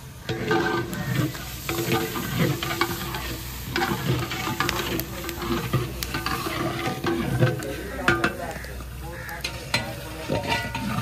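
Long metal ladle stirring and scraping chicken korma in a large metal degh, with irregular clinks and scrapes of metal on metal.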